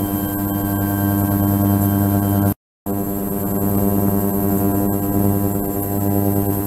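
Ultrasonic cleaning tank running: a steady buzzing hum with many overtones over a faint hiss, cutting out for a split second about two and a half seconds in.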